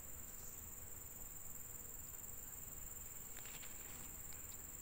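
Steady high-pitched trill of insects. A few faint clicks about three and a half seconds in.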